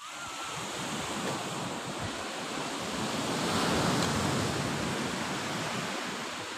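Ocean surf on a beach: a wave rushing in that starts suddenly, builds to its loudest about four seconds in, then fades away.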